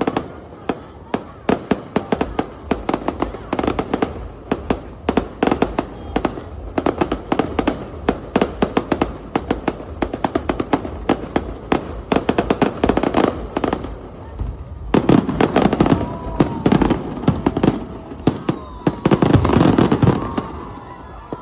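Fireworks display: a rapid, continuous crackle of sharp bangs and pops, building to dense, louder volleys about fifteen and nineteen seconds in, then dying away near the end.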